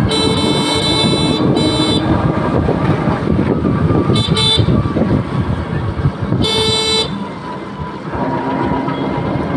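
A vehicle horn honking several times: a long blast at the start, a short one just after, two quick toots about four seconds in and another short toot near seven seconds, over the steady rattle and road noise of a moving rickshaw.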